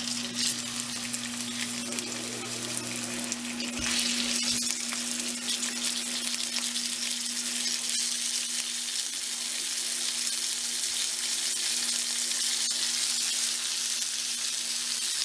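Cubed round steaks sizzling as they pan-fry in hot oil in a cast-iron skillet, the sizzle getting louder about four seconds in as more pieces are laid in with tongs. A steady low hum runs underneath.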